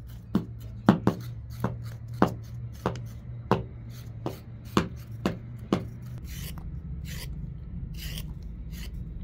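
A wooden stick knocking repeatedly, about eleven sharp knocks roughly every half second. From about six seconds in, a knife scrapes the skin off a carrot in a few short strokes.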